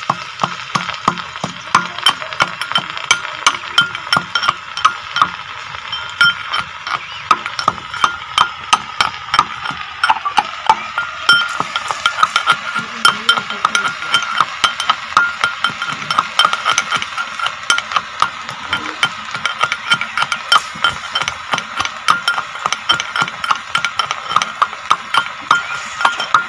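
Garlic being pounded with a metal pestle in a steel tumbler: a steady run of quick metallic knocks, about three a second, each with a ringing clink of the steel.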